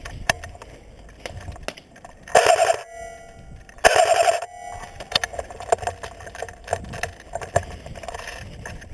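Airsoft electric rifle firing two short bursts about a second and a half apart, each with the whine of its gearbox, amid scattered sharp clicks.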